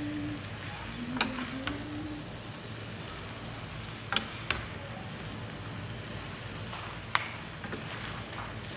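Two wooden spatulas tossing and stirring noodles and cabbage in a wok, knocking sharply against the pan about five times, over a steady low hum.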